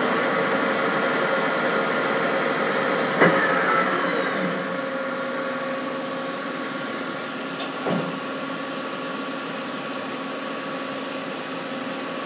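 Daewoo Puma 15 CNC lathe running with a steady machine hum, its spindle and chuck spinning down after a sharp clunk about three seconds in. A second, smaller knock comes about eight seconds in while the spindle is stopped for the change from low to high range.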